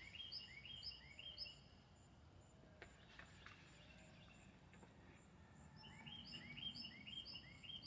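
A small bird singing faintly outdoors: a quick run of repeated high notes, about four a second, at the start and again about six seconds in.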